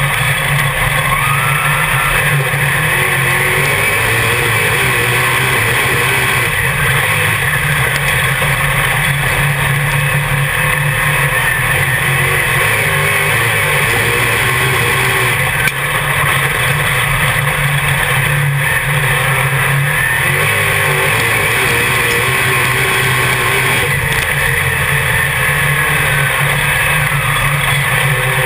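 Dirt modified race car's V8 engine heard from inside the cockpit, running loud and steady under racing load, its pitch rising and falling as the throttle comes on and off through the turns.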